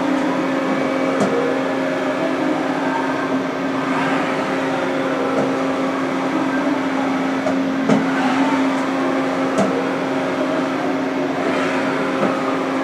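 Haas VF-3 vertical machining center's Z-axis being jogged: the axis servo drive whines, rising and then falling in pitch with each move, about three times, over the machine's steady hum. A few light clicks come in between.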